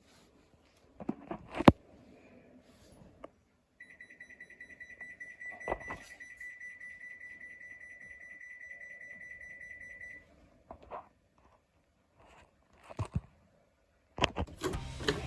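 Drum washing machine's electronic buzzer sounding a rapid, continuous beeping alarm for about six seconds, the alert of the machine stopping on an error. A few clicks and knocks come before and during it, the sharpest about a second and a half in.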